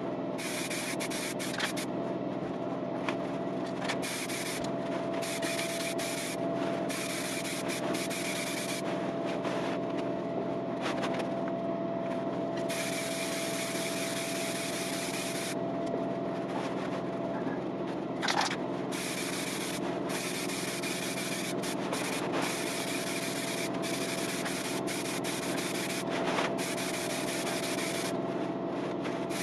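Motorcycle bodywork panels being sanded by hand: scratchy rubbing that comes and goes in irregular stretches over a steady hum.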